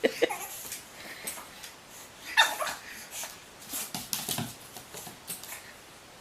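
A pet animal's short whining call, the loudest about two and a half seconds in, among scattered brief scuffling noises.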